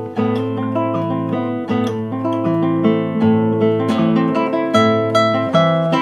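Background music: acoustic guitar, plucked notes ringing on over one another.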